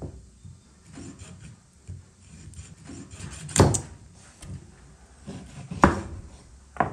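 Large kitchen knife chopping through a raw goose onto a wooden cutting board: a few sharp knocks a second or two apart, with quieter handling and rubbing between.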